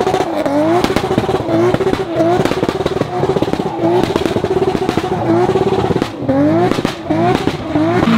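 2JZ-swapped BMW E60 saloon doing a smoky wheelspin pull-away, its engine revving up sharply again and again, about a dozen quick rising revs in a row.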